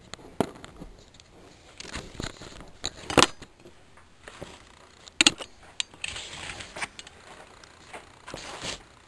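Knocks, clinks and scraping of a fork handled against a burrito on a paper plate. The sharpest knocks come about three and five seconds in, and rustling scrapes follow near the end.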